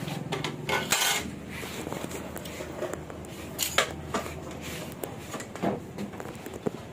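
Aluminium window profiles knocking and rubbing as an interlock strip is handled and offered up to a sliding-window sash: a few separate light clacks, one about a second in and more near the middle and end.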